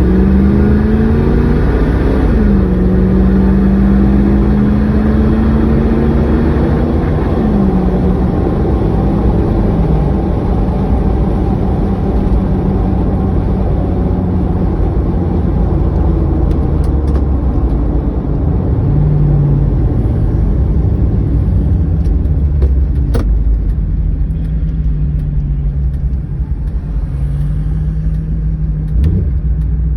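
Car or truck engine running under way, its pitch rising and falling as it accelerates, holds speed and backs off, after a bad fuel injector was replaced. A couple of sharp clicks come late on.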